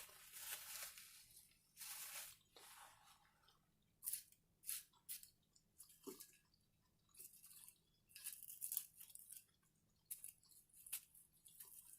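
A person chewing food close to the microphone, with crunchy, irregular bites and mouth sounds coming every second or so.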